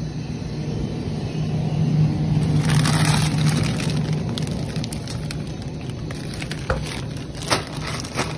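Car driving, heard from inside the cabin: a steady low hum with road noise that swells a few seconds in, and a few clicks and rustles near the end.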